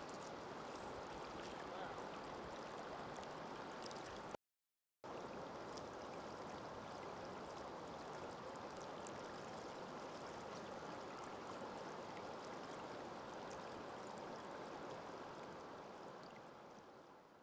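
Creek water rushing and gurgling over rocks as a steady wash of noise. It cuts out for a moment about four seconds in, then fades out near the end.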